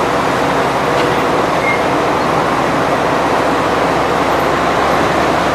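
Sugarcane crushing mill machinery running with a loud, steady mechanical din.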